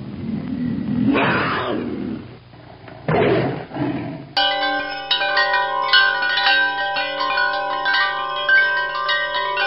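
A tiger-like growling roar in two swells, then from about four seconds in wind chimes ringing, many overlapping bell tones struck in quick succession.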